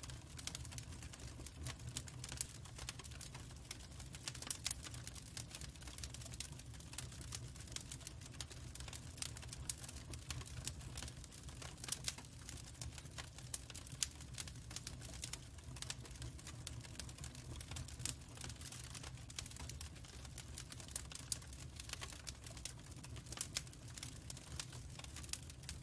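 Birch logs burning in a wood fire, crackling with irregular sharp pops over a steady low rumble.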